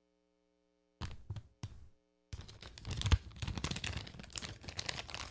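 Close handling noise of hands and a small screwdriver working on a laptop's bottom case: a few short clicks, then a dense run of scratchy clicks, scrapes and rustles from about two seconds in.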